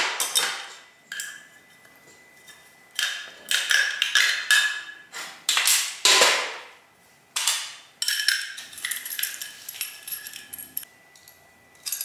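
Needle-nose pliers knocking, clicking and scraping against a round steel electrical box as a knockout is worked free and a metal cable clamp is fitted and its locknut tightened. The sharp metal knocks come irregularly, loudest a few seconds in and again about halfway, each with a brief ring from the box.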